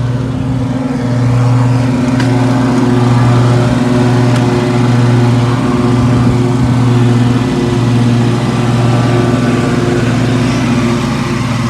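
Riding lawn mower's engine running steadily under load, its hum swelling and easing slightly about once a second.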